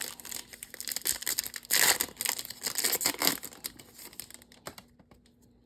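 A trading-card pack wrapper being torn open and crinkled, with one loud rip about two seconds in.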